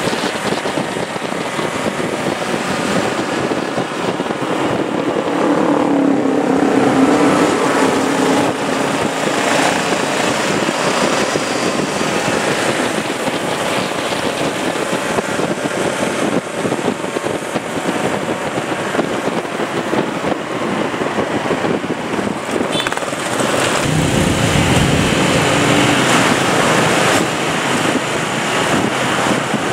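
Trail-style motorcycles riding at speed, their engines running loud under a continuous rush of road and wind noise; an engine's pitch rises and falls about a quarter of the way in.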